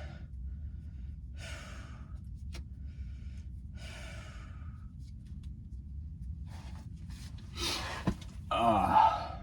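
A man breathing hard and sighing several times while working in a cramped space under a vehicle, with a short voiced grunt near the end and a sharp click just before it, over a steady low hum.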